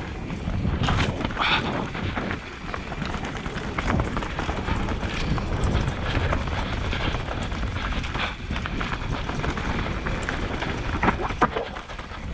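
Mountain bike riding fast down a dirt forest singletrack: a steady rumble of tyres and rattling of the bike over roots and rocks, broken by sharp knocks from hits, the two loudest close together near the end.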